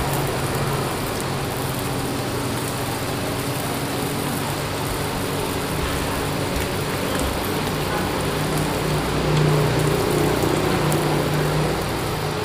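Meat sizzling steadily on a sindad, a Lao tabletop grill-and-broth pan, with a low steady hum underneath.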